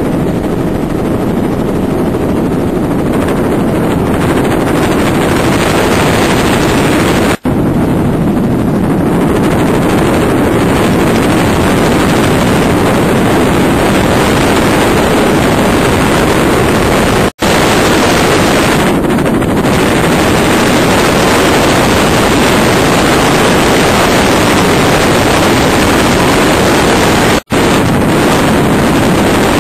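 Helicopter in flight, heard from on board: a loud, steady rush of engine, rotor and wind noise. It cuts out for a split second three times, about every ten seconds.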